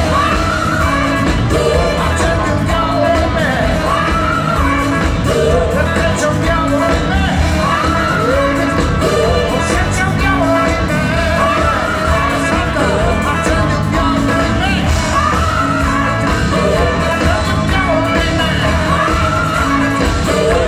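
Live rock band playing with a lead vocal, a sung phrase rising and falling in pitch and repeating about every three seconds over a steady beat, recorded from within the audience.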